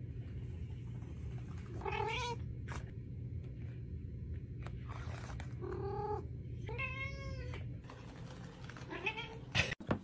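An orange tabby cat meowing about four times, the longest call a little after the middle, over a steady low hum.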